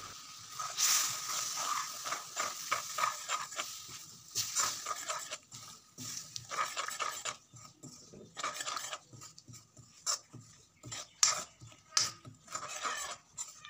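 Metal spoon stirring and scraping moong dal in a metal kadai, with irregular clinks against the pan, over a soft sizzle in the first few seconds as the dal cooks on low flame.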